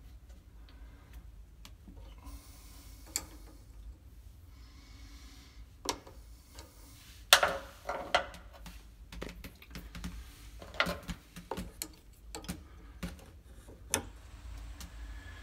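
Irregular sharp metallic clicks and taps of an 8 mm wrench working the tip-nose set screw on a VW Beetle's shift coupler, the loudest about seven seconds in.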